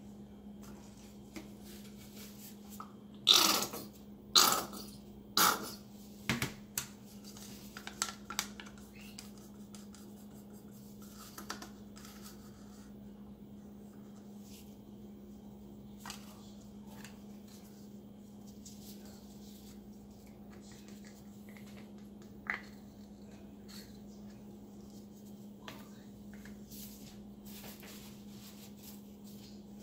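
Plastic paint cups and wooden stir sticks handled while layering acrylic paint into a cup: three louder knocks about a second apart near the start, then scattered light clicks and taps, over a steady low hum.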